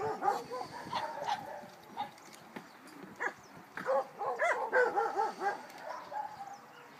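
A dog barking and yipping in short calls, with a quick flurry of them about four to five seconds in.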